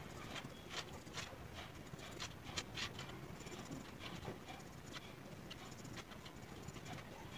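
Pencil drawing on paper: faint, irregular short scratches and ticks of the lead on the sheet, over a low room hum.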